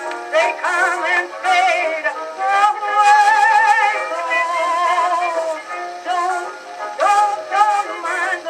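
A 1920s jazz dance record played on a Victrola Radiola 7-11 phonograph: a woman sings with wide vibrato over a small jazz band. The sound is thin, with no low end.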